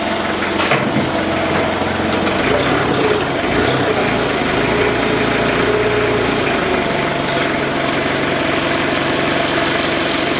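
Steady running noise of machinery: a continuous mechanical hum with several steady low tones, and a single click less than a second in.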